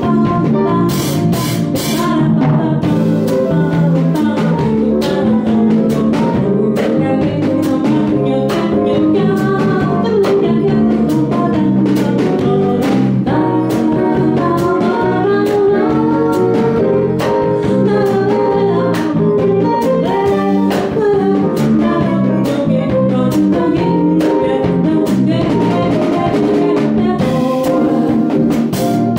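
Live jazz band: a woman singing over acoustic guitar, electric bass and drum kit, with a steady beat.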